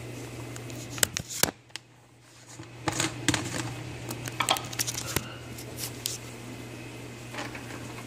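A series of sharp clicks and knocks from close handling, in small clusters with a short quieter gap about two seconds in, over a steady low hum.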